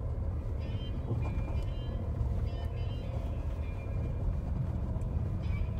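Jeep Renegade driving on a rough dirt track, heard from inside the cabin: a steady low engine and tyre rumble, with faint brief higher tones coming and going.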